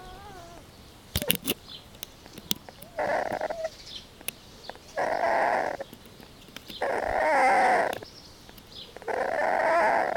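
Puppy snoring: four rasping snores about two seconds apart, the later ones longer. A brief wavering squeak at the start and a few sharp clicks come before the first snore.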